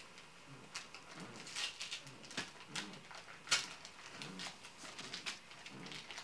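Irregular rustling and sharp crackling of paper being handled, the loudest crackle about halfway through, over faint murmured voices.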